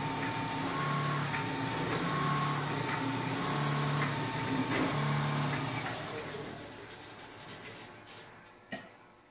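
Richpeace single-head quilting machine running: a steady mechanical hum whose tone shifts back and forth in a regular cycle about every second and a quarter. It dies away over the last three seconds, with a couple of sharp clicks near the end.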